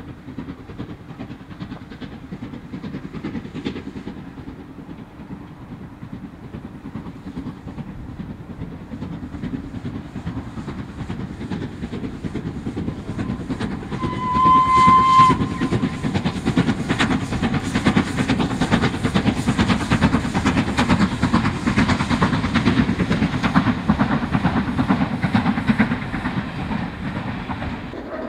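Steam locomotive hauling a passenger train past, its running noise and wheel clicks growing louder as it nears. About halfway through, one short steam whistle sounds for a little over a second.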